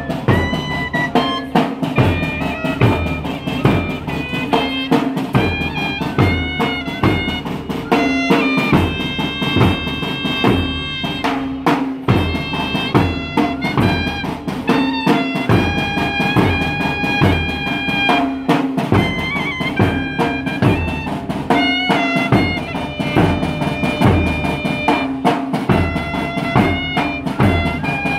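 A school band playing: two clarinet-like wind instruments carry a melody of held notes over a steady beat on a large bass drum and a side drum.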